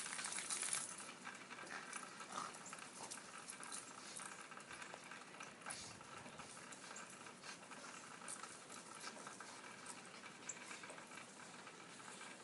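Faint crunching and scuffling of snow as two small dogs dig and bound through it, with scattered light ticks over a soft steady hiss.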